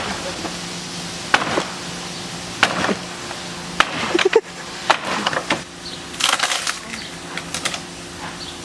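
A series of sharp cracks and knocks, about one a second with a quicker cluster near six seconds in, over a steady low hum.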